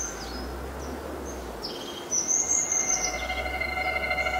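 Birds chirping in short, high calls over a steady background hiss; about halfway through, a steady held tone of several pitches comes in and grows louder under the birdsong.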